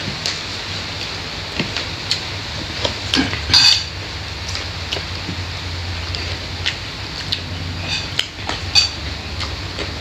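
Close-miked eating: chewing and crunching with scattered sharp clicks and crackles, busiest about three and a half seconds in, over a steady low hum.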